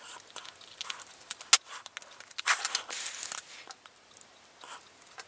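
3D-printed plastic socket holders and chrome sockets clicking and scraping as they are handled and fitted onto a metal rail, with a sharp click about one and a half seconds in and a denser run of rattling soon after.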